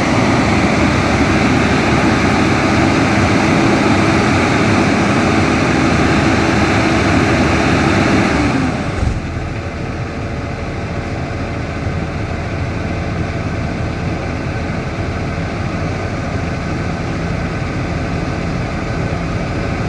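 A heavy machine's engine running steadily under load, then dropping abruptly to a lower, quieter running note a little past halfway.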